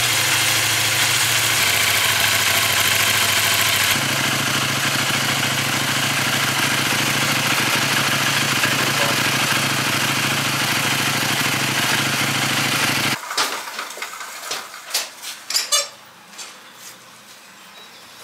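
KTM Duke 790's parallel-twin engine idling steadily, warming up to circulate freshly refilled coolant. About thirteen seconds in, the engine sound cuts off abruptly and a few scattered clicks and knocks follow.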